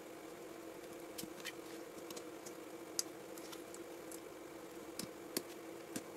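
Faint, scattered small clicks and taps of handling small electronic parts, about seven in six seconds, over a steady low hum.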